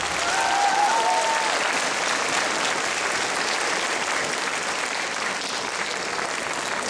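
Audience applauding in a hall, a dense steady clapping, with a brief high cheer over it near the start.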